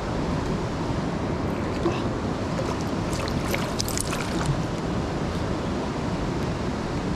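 Steady rush of a rocky mountain stream, with a brief cluster of light clicks from about two to four seconds in.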